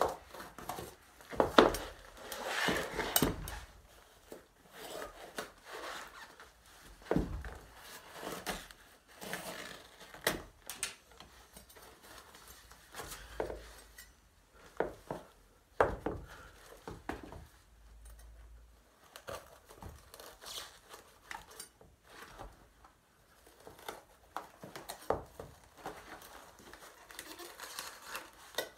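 A knife cutting and scraping at a suede sneaker, with hands handling the shoe and its laces: scattered irregular clicks, scrapes and rustles with short pauses between them.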